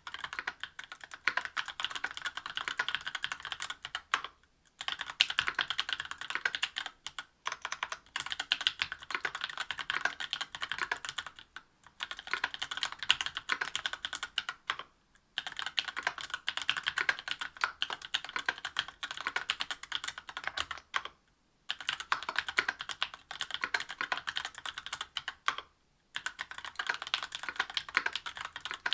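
Typing on a mechanical keyboard with stock, unlubricated Tecsee Oreo 63.5 g linear switches on an aluminium plate with GMK keycaps. It makes a fast, steady stream of keystroke clacks, broken by a few brief pauses.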